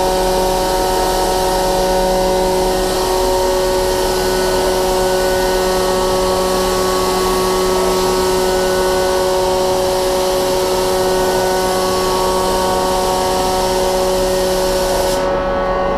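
Steady air hiss from a gravity-feed spray gun laying down paint, over the constant hum of a paint booth's ventilation, which holds several fixed pitched tones. The spray hiss cuts off about a second before the end as the trigger is released, leaving the booth hum.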